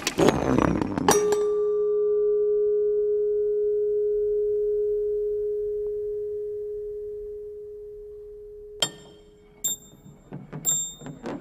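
A brief clatter of metal car parts hitting and rolling, then a single strike about a second in that leaves a metal car part ringing with one steady tone, slowly fading over about seven seconds. Near the end come scattered light metallic clinks and ticks.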